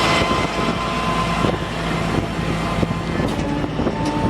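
A 5.9-litre Cummins diesel running steadily at raised high idle, with the PTO engaged to drive the rollback bed's hydraulics. Thin steady whining tones sit over the engine drone, and a new pair of tones comes in near the end.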